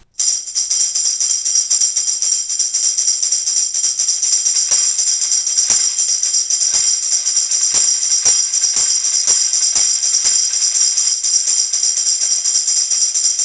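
Foot-pedal tambourine, a Latin Percussion tambourine fixed to a pedal in place of the beater, played in a steady rhythm. Its jingles shake without a break, with heavier strokes about once a second.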